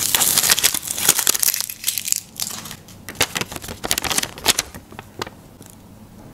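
Paper crinkling and rustling as a small folded paper packet is opened and its paper sticker is handled and pressed onto a notebook page. Dense crinkling at first, then scattered rustles and taps that die away about five seconds in.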